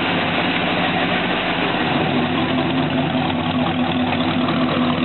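Chevrolet 350 small-block V8 in a 1956 Ford F-100 pickup idling steadily.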